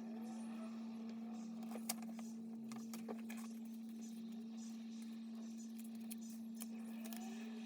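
Faint handling of packaging: light rubbing squeaks and a few small clicks and taps as the laptop's box and packing are handled, over a steady hum.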